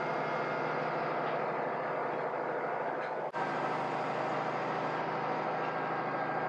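Steady engine drone and running noise heard from inside a moving vehicle. The sound briefly drops out a little over three seconds in, then carries on unchanged.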